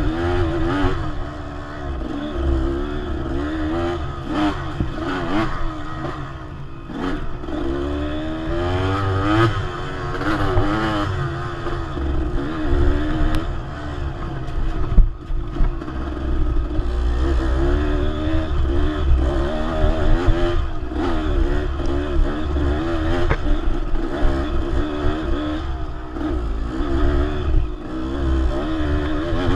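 Dirt bike engine revving up and down over and over as the throttle is worked, under a low rumble, with scattered clatter and knocks from the bike over rough ground; the sharpest knock comes about halfway through.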